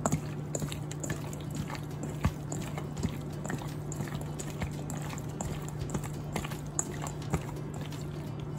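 Peeled raw shrimp being kneaded by hand in a stainless steel bowl in a wet marinade of egg white, potato starch and oil: sticky squelching with irregular small clicks of shrimp and fingers against the bowl, over a steady low hum.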